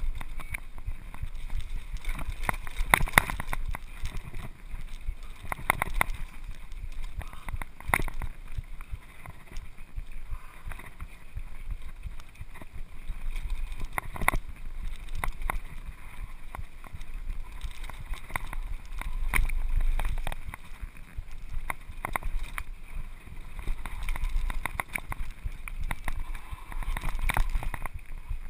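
Mountain bike clattering down a rough dirt trail, with frequent sharp knocks from bumps and wind buffeting the camera microphone.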